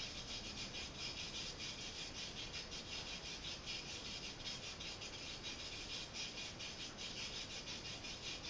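High-pitched hiss pulsing about five times a second, an electronic noise signal on the measurement bench.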